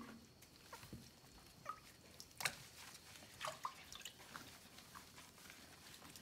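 Water dripping and plinking back into a tub of bathwater as a soaked puppy is lifted out, with a few small splashes; the loudest splash is about two and a half seconds in.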